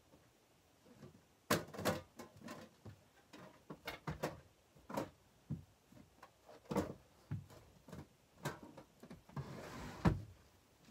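Things being handled and set down: an irregular string of light knocks and clicks, with a short scraping rustle just before the loudest knock near the end.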